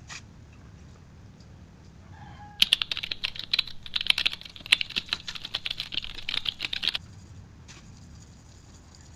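A Toyota Avanza crankshaft being scrubbed and scraped by hand with a small tool: a fast run of scratchy strokes that starts about two and a half seconds in and stops sharply about four seconds later.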